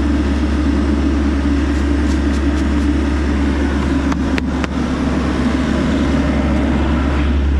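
Diesel engine of a Bobcat E85 excavator running steadily at idle, with a few sharp clicks about four seconds in.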